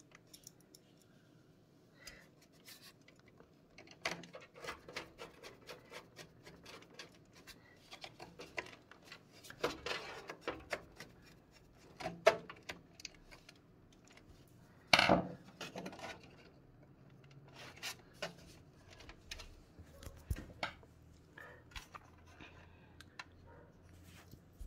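Screwdriver and screws clicking and scraping as a motherboard is screwed loosely onto the standoffs of a PC case, with rubbing of metal on metal and a few sharper knocks about ten, twelve and fifteen seconds in.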